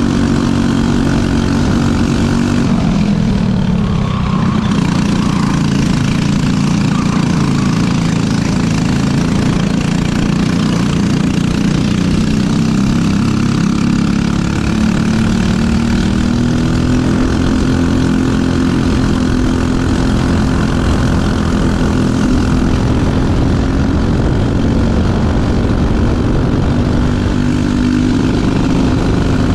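Briggs & Stratton LO206 single-cylinder four-stroke kart engine running at racing revs, heard on board. The pitch drops sharply about three seconds in and climbs again, then keeps rising and falling as the kart brakes and accelerates through the corners.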